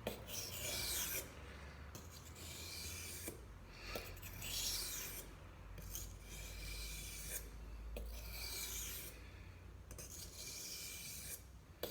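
A small Browning knife blade being drawn across a wet sharpening stone: repeated rasping strokes, each lasting about a second, roughly one every second and a half.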